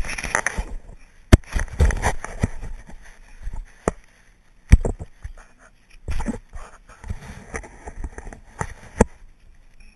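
Sharp knocks and scuffing from a jostled GoPro, with a Staffordshire bull terrier sniffing right at the lens at the start.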